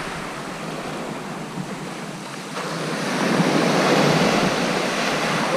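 Sea surf breaking and washing on the beach, with some wind on the microphone; the wash swells about three seconds in.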